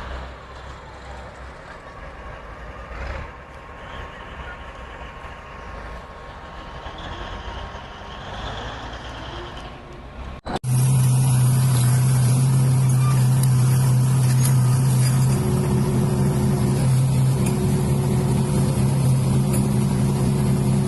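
Heavy vehicle engine sounds. A quieter mix of machine noise is cut off abruptly about halfway through, and a loud, steady low engine drone follows.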